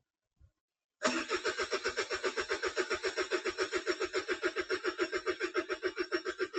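Starter motor cranking a diesel engine that does not fire. It cuts in abruptly about a second in and turns over at an even, rapid pulse. This is a crank-no-start, a fault traced to the injection pump and its timing.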